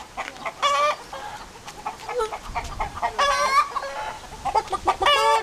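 Chickens clucking, with three louder, drawn-out calls: about a second in, around three seconds in, and near the end.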